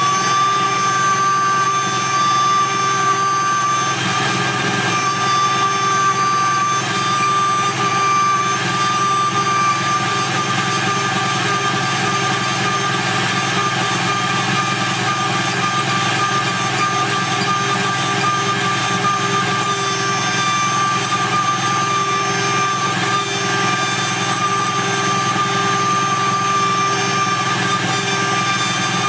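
The DMC2 CNC mill's spindle is running with a steady high whine while a 4 mm end mill cuts 6061-T6 aluminium, the whine laid over a constant hiss of cutting and coolant spray.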